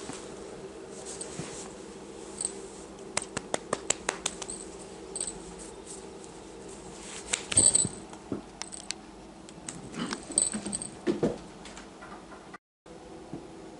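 A sphynx kitten playing with a hand and a wand toy, chewing at the fingers: clusters of small clicks and rustles over a steady low hum. The sound drops out for a moment near the end.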